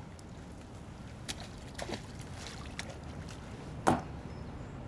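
A crab trap's line being hauled up hand over hand against a floating wooden pier, over a steady low background. A few light clicks, and one louder sharp knock about four seconds in.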